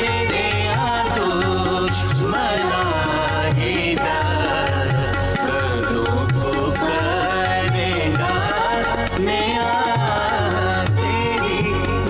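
Instrumental interlude of a Punjabi psalm song: a lead melody with sliding, ornamented pitch over a steady hand-drum rhythm.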